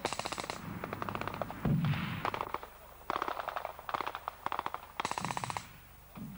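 Automatic gunfire in several short rapid bursts, each about half a second long, with one heavier, deeper boom about two seconds in.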